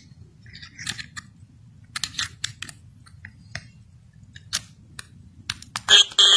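Faint scattered clicks over a low hum, then near the end a sudden loud, steady buzz begins: the stuck, looping audio of Windows 7 crashing to a blue screen in a VirtualBox virtual machine.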